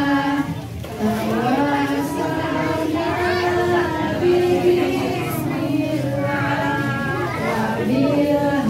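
Several voices singing together in slow, long held notes that glide from one pitch to the next.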